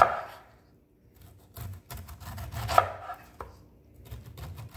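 Chef's knife slicing the rind off an upright pineapple, rasping down through the tough skin and knocking onto the wooden cutting board at the bottom of each stroke, once at the start and again about three seconds in.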